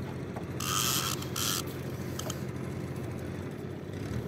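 Fishing reel's drag buzzing in two short bursts about a second in as the hooked fish pulls line off, over the steady low hum of the boat's engine.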